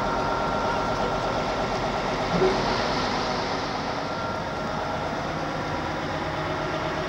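Steady engine and road noise of a tour vehicle heard from inside its cabin, with a brief knock about two and a half seconds in.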